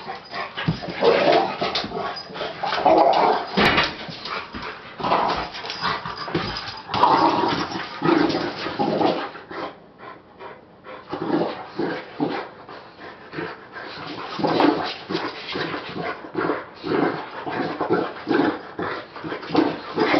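Two boxer dogs mouth-wrestling in play, making a continuous stream of whining and yipping play noises that eases off briefly just before halfway through.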